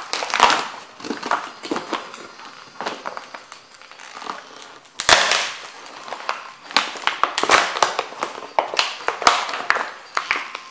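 Cofra Thermo rubber boots stomping and grinding on a canvas painting and its wooden stretcher frame: canvas crumpling and wood cracking and splintering in irregular crunches, with one heavy stomp about five seconds in and a dense run of crackling near the end.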